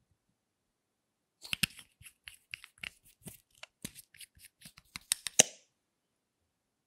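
Small plastic makeup tubes and caps handled and clicked together: a quick run of sharp plastic clicks and taps starting about a second and a half in, with a few louder clicks near the end.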